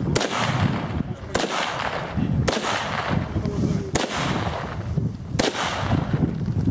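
Five single shots from a semi-automatic carbine, spaced about one to one and a half seconds apart, each followed by a short echo.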